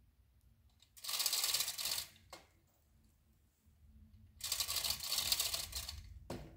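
2-ton chain fall being hauled by its hand chain: the chain rattles through and the ratchet pawl clicks rapidly in two spells of pulling, the first about a second long, the second nearly two seconds, as the hoist draws the leaning maple over.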